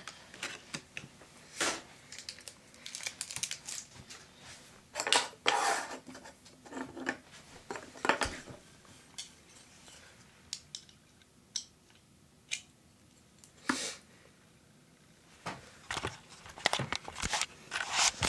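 Plastic wrapping being pulled off a diecast model airliner by hand: irregular crinkling and rustling in bursts, with sharp clicks and taps from handling the model, quieter for a few seconds in the middle.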